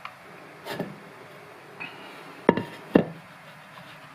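Two sharp knocks about half a second apart as kitchenware is set down on a table, after a few fainter handling sounds.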